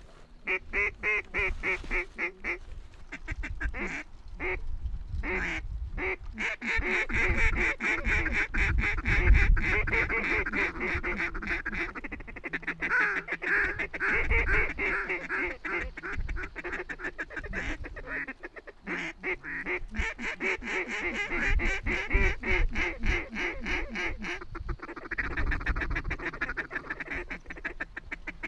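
A large flock of ducks and geese calling, a dense, rapid chatter of quacks and honks that never lets up. It is loudest about nine seconds in and again around twenty-two seconds.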